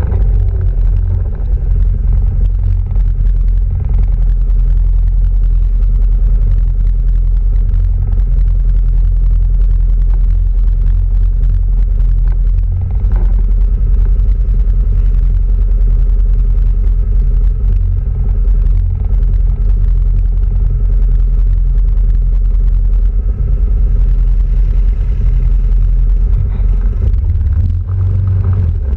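Quad bike (ATV) engine running steadily at cruising speed, heard from a camera mounted on the moving quad, with a heavy low rumble.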